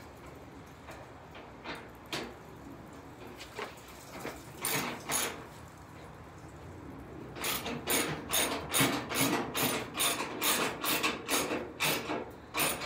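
Ratchet wrench with a 13 mm socket turning a fender bolt. There are a few scattered clicks, then from a little past halfway a steady run of ratchet clicks, about three a second, until near the end.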